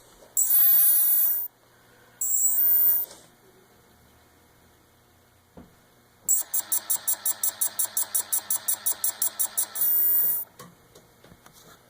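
A motor run in two short bursts, then for about four seconds with a rapid even pulsing, about six pulses a second. The motor is faulty.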